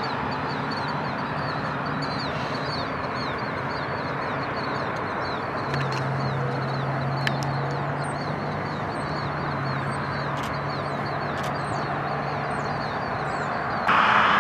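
Steady distant jet rush from a taxiing CRJ-200 regional jet, with a bird's short falling chirps repeated several times a second throughout. A low steady hum joins in the middle, and the jet noise jumps louder near the end.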